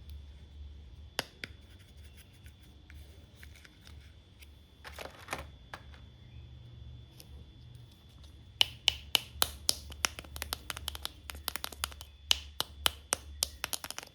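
Toy doctor set and its packaging being handled: scattered clicks and a short brushing rustle, then from about eight seconds in a quick run of sharp clicks and taps, three or four a second.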